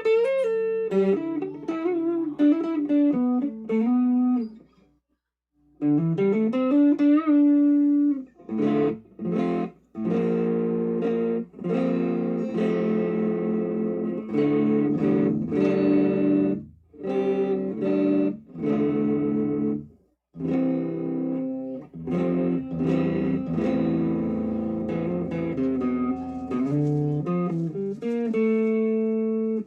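Electric guitar played through a Donner Dumbbell Drive overdrive pedal: sustained single-note lines and chords with bends and slides. The playing pauses briefly about five seconds in, then resumes.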